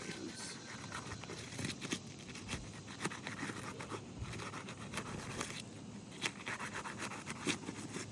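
Asphalt roof shingles being pried up to break their sealed tar strips: irregular scraping and rasping with scattered sharp clicks.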